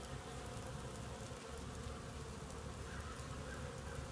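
Honey bees in an open nuc box humming steadily, the massed wingbeats of a crowded colony on its frames.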